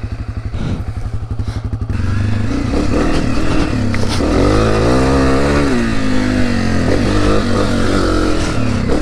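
A 2020 Honda CRF250F dirt bike's single-cylinder four-stroke engine running with a rapid, even beat, then revving up and down as the bike pulls away and picks up speed.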